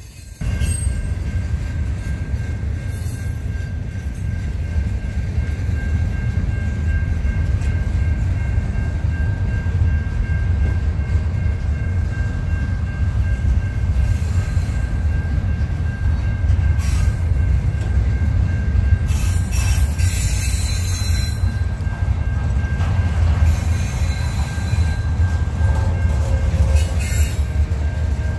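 CN freight train rolling past close by, a steady heavy rumble of wheels on rail with a thin, steady squeal of wheels against the rail above it.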